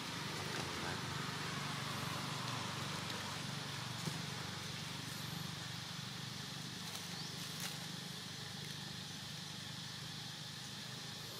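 Steady outdoor background noise: a low hum under a faint hiss, with a couple of faint clicks.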